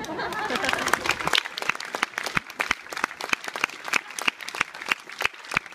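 Audience applauding at the end of a brass band piece. After about a second and a half the clapping thins to scattered single claps.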